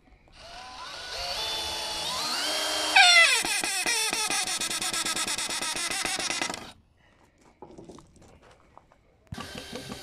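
Power drill boring into a rough-sawn wooden board. The motor spins up with a rising whine; at about three seconds it gets louder and its pitch drops as the bit bites into the wood, and it keeps running with a fast rattle until it stops near seven seconds.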